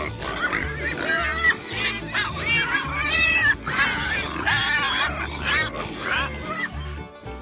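Pigs squealing again and again in short, high, wavering calls, with background music running underneath.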